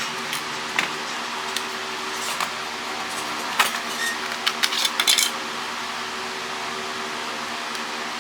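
Scattered clicks and clacks of plastic cordless-phone handsets and parts being handled, with a cluster of them from about three and a half to five seconds in, over a steady background hum.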